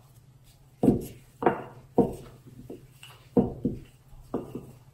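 Wooden rolling pin rolling out noodle dough on a granite counter: a run of dull knocks, about one every half second to second, beginning about a second in, as the pin is pushed and pulled in strokes.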